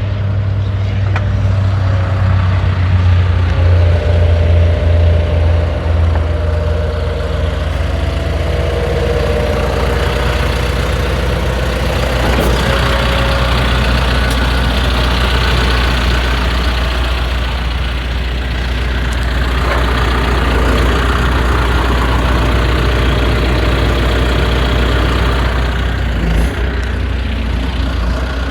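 2009 John Deere 410J backhoe loader's diesel engine running steadily, with a change in its tone about six seconds in.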